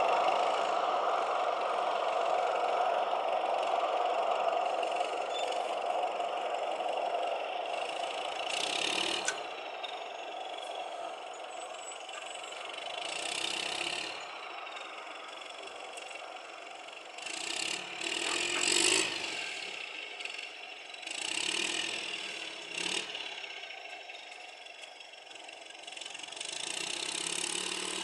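Roadrunner hay squeeze's engine running steadily and growing fainter, broken every few seconds by louder surges with rattling and clatter as the machine works the hay bales.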